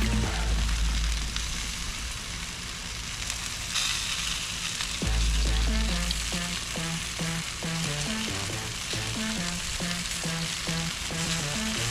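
Background music with a stepping melody and a deep bass line that drops out between about one and five seconds in, over a steady sizzling hiss of chicken cooking on the grill.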